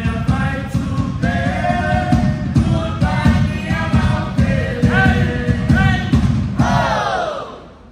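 A group of voices singing a Samoan song in harmony over a steady driving beat. About seven seconds in, the voices slide down together and the song ends, fading out.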